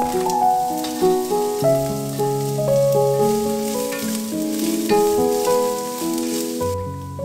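Diced onion sizzling in a hot Dutch oven as it is stirred with a wooden spoon, with background music throughout; the sizzle stops near the end.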